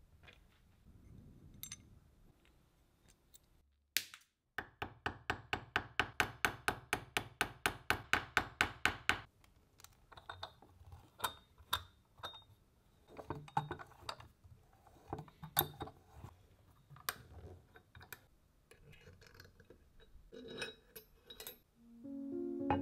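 Clicks and clinks of small hard parts being handled and worked, with a fast even run of clicks, about six a second, lasting roughly five seconds.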